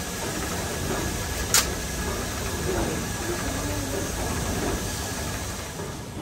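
Steady hissing workshop background noise with a single sharp click about a second and a half in.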